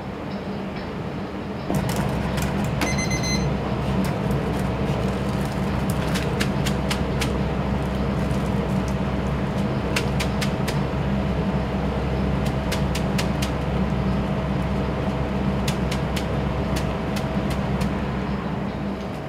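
Steady roar of a commercial kitchen's steaming noodle boiler and extractor hood with a constant hum, starting suddenly about two seconds in. Over it, a metal mesh noodle strainer being shaken to drain ramen noodles gives groups of light clicks and taps, and a short high beep sounds about three seconds in.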